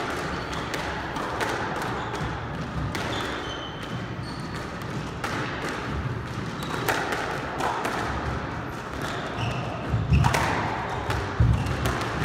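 Squash ball being hit and bouncing off the walls and wooden floor of a squash court, with a scatter of sharp knocks; the loudest hits come near the end as a rally gets going. Short squeaks and footsteps of players' shoes on the floorboards are mixed in.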